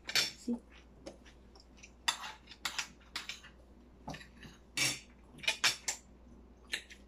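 Cutlery clinking against plates and a bowl at the dinner table: a scattered string of short, sharp clicks, a few close together at times, with quiet gaps between.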